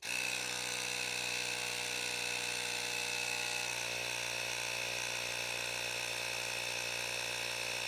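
Ryobi 18V cordless handheld inflator running steadily with its trigger held, pumping air into a rugby ball through a needle adapter. It starts at once and cuts off sharply near the end when the trigger is released.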